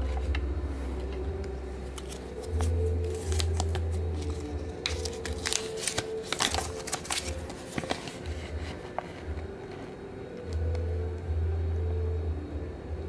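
Thin paper instruction leaflet being unfolded and handled, crinkling and crackling, busiest about five to seven seconds in. Two stretches of low rumbling bumps, from hands knocking the table or the microphone, are the loudest parts.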